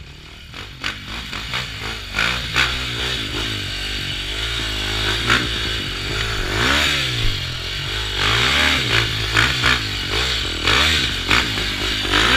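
Enduro motorcycles revving and riding past one after another, their engines rising and falling in pitch as each goes by. The noise builds over the first couple of seconds, with scattered clatter among the engine sound.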